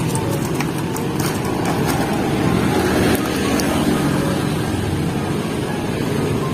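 Steady traffic noise from passing cars and motorbikes on the road, with a few light clicks in the first couple of seconds as toppings are scooped into plastic cups.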